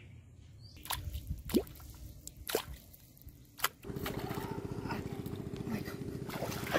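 A few sharp plops at the water surface, then from about four seconds in a small engine running steadily nearby, with splashing from a hooked fish thrashing at the surface.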